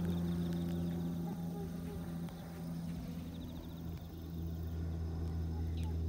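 Steady low drone of an aeroplane flying overhead, one even hum with no change in pitch.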